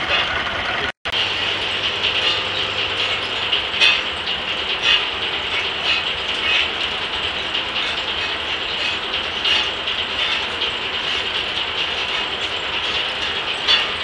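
1880s Gaar Scott circular sawmill, belt-driven by a steam traction engine, running between cuts: a steady mechanical clatter of gearing and carriage with a few sharp ratcheting clicks. The sound cuts out briefly about a second in.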